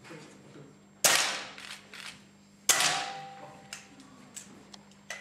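Two pistol shots about a second and a half apart, each sharp and followed by an echo that dies away over about a second, with a few lighter clicks of handling between them.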